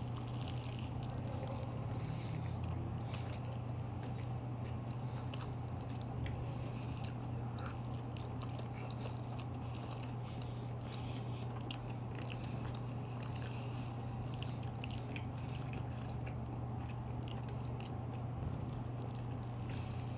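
Mouth sounds of people chewing and biting a light, flaky puff pastry: many small irregular clicks and soft crunches. A steady low hum runs underneath.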